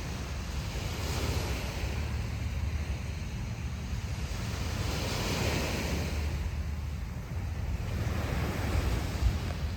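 Ocean surf breaking and washing up the beach in repeated surges, about a second in, midway through and near the end, over a steady low rumble of wind on the microphone.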